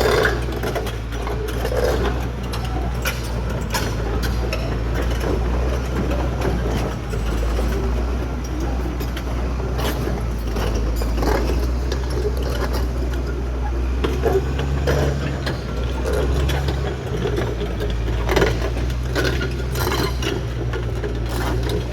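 Caterpillar D6R XL crawler bulldozer's diesel engine running steadily under the clatter and clanking of its steel tracks. The engine note shifts about two-thirds of the way through.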